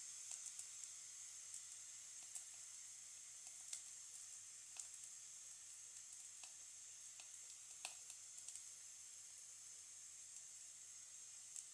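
Fried aubergine in a pan of hot spiced gravy, sizzling faintly with scattered crackling pops, slowly dying down.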